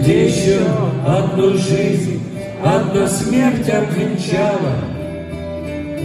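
Live band music in an instrumental passage without lyrics: acoustic guitar and held chords under a wavering, sliding lead melody that settles into sustained chords near the end.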